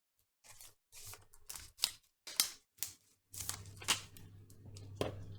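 Irregular small clicks and taps of phone parts and tools being handled on a workbench. A low steady hum comes in a little over three seconds in.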